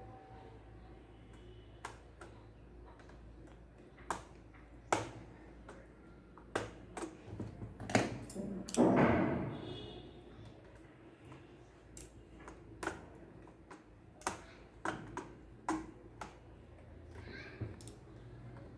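Clicks and taps of a laptop and small parts being handled, with a longer scraping or sliding sound about nine seconds in.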